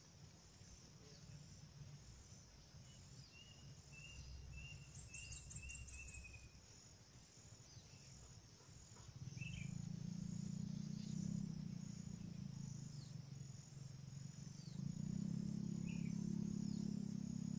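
Outdoor ambience: insects chirping in a steady, evenly repeating high rhythm, with a few short bird calls. A low hum comes in about nine seconds in and swells again near the end.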